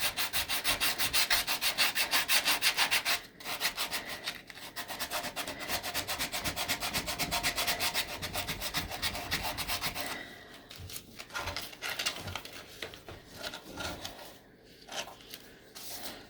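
Sandpaper rubbed by hand over wood in quick, even back-and-forth strokes, several a second, with a short break about three seconds in; from about ten seconds in the strokes become lighter and sparser.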